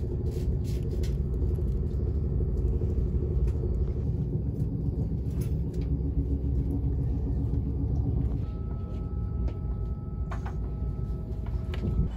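Passenger train running at speed, heard from inside the carriage: a steady low rumble of wheels on the track. A faint high whine joins about eight seconds in.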